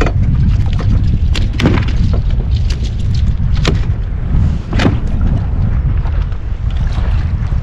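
Strong wind buffeting the microphone in a steady low rumble, with several sharp knocks and slaps scattered through it, the clearest about a second and a half, three and a half and five seconds in.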